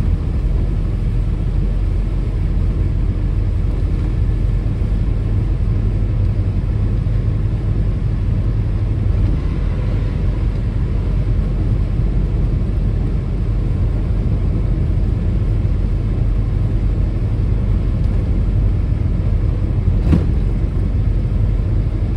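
Steady low rumble of a car driving at expressway speed on a rain-soaked road, heard from inside the cabin. A single sharp knock sounds near the end.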